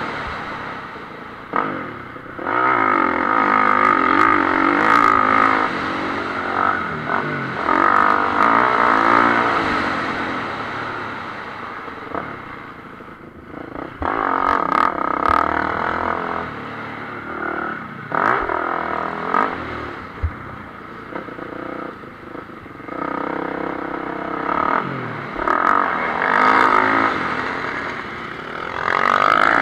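Motocross bike engine heard from a camera on the bike, revving up hard and dropping off again and again as the throttle opens and closes around the track, with scattered knocks and clatter from the rough ground.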